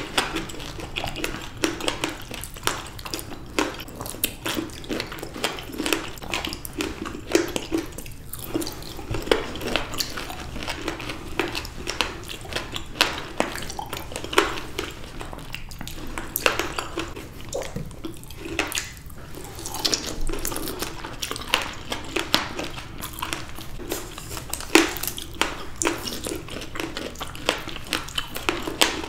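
Close-miked chewing of juicy raw fruit (grapes, blackberries and blood orange): wet squelching bites with frequent sharp clicks throughout.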